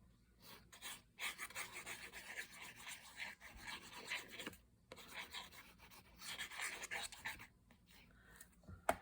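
Hands rubbing over paper to press a freshly glued paper frame down, in two stretches of a few seconds each, with a sharp tap near the end.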